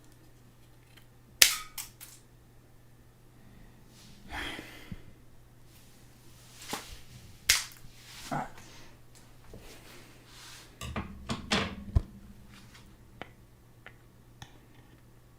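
Scissors snipping at a firecracker stick, with handling noise: scattered sharp clicks and snips, the loudest about a second and a half in and a cluster near the end.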